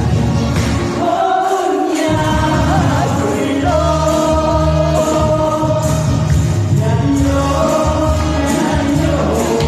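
A pop song with singing over a backing track with a steady bass beat, played over a PA. The bass and beat drop out briefly about a second in.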